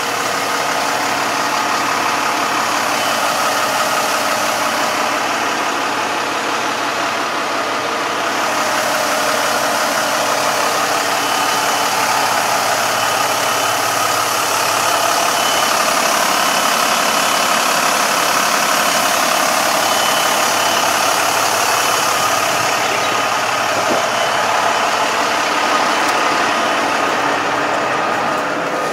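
Diesel engine of a rough-terrain crane running steadily under load as it hoists an overturned tractor, with thin steady whining tones over the engine noise.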